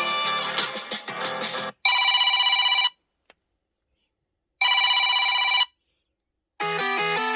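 Samsung Galaxy S23 ringtones. A melodic ringtone cuts off, then a telephone-ring ringtone sounds twice with silence between, each ring about a second long with a fast trill. Near the end another melodic ringtone begins.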